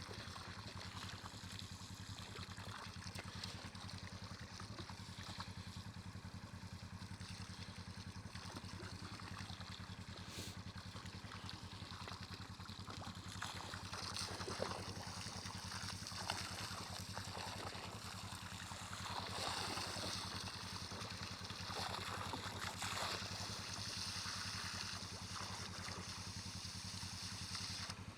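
Water running from a hose fed by a yard hydrant into a livestock water tank, a steady splashing rush that grows louder about halfway through.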